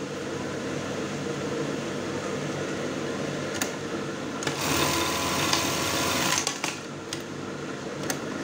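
Brother 814 industrial buttonhole machine sewing a test buttonhole. Its motor hums steadily, the machine runs much louder for about two seconds in the middle, and a few sharp clicks come before and after that run.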